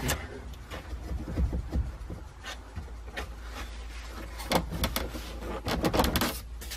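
A dash pad being tugged and worked loose from its clips, giving scattered clicks, knocks and rattles, with a quicker run of sharper clicks about two-thirds of the way through.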